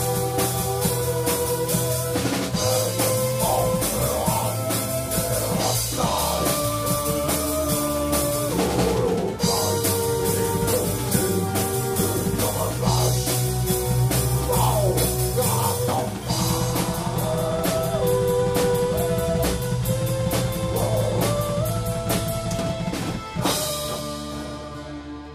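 Live folk-metal band playing: drum kit with kick drum, acoustic guitar and bass under a wavering melodic line. The music dies away near the end.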